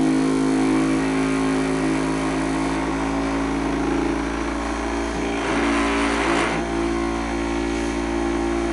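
Small DC motor under a PWM speed controller running at around 3,100 to 3,400 rpm as its speed is turned up, a steady hum with a rougher stretch about six seconds in. It vibrates because the wheel on its shaft is slightly out of alignment.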